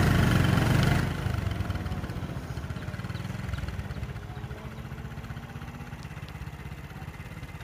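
Vehicle engine running with a low, steady pulse, louder for about the first second and then settling to a quieter idle.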